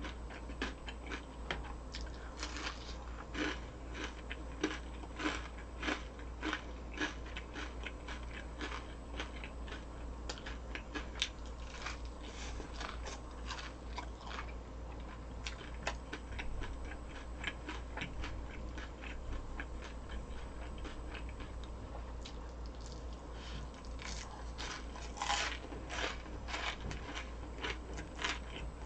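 Close-up chewing and crunching of crisp deep-fried food, a steady run of sharp crackly crunches with a louder cluster about 25 seconds in.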